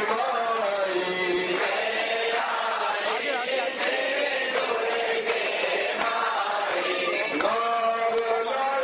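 Hindu devotional chanting: voices singing an aarti hymn continuously, with music behind them.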